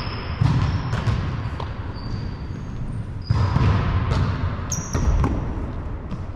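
Volleyball being played on a hardwood gym floor: sneakers squeaking in short high chirps, mixed with the thuds of the ball being hit and of feet on the court.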